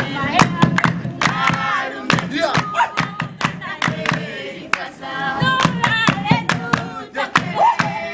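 Oshiwambo traditional dance music: a group singing and chanting over hand-clapping and a hand drum, the sharp claps and drum strokes coming in a quick, steady rhythm.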